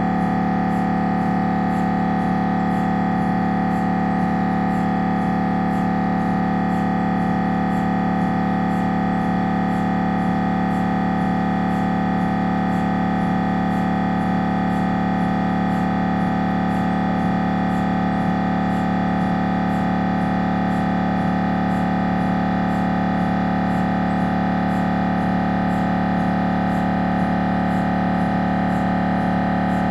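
Siemens Magnetom Avanto 1.5 T MRI scanner's gradient coils buzzing through an imaging sequence: a loud, unchanging drone of several steady tones, low and midrange, with faint regular ticks high above it.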